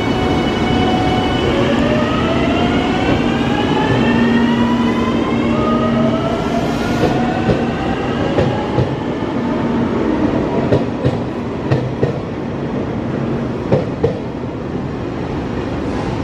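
A JR Shikoku 8000 series electric multiple unit pulling away from a standstill. Its traction motors give a whine of several tones that rise together in pitch for several seconds as it gathers speed. Then the wheels clack over rail joints in quick pairs as the cars roll past.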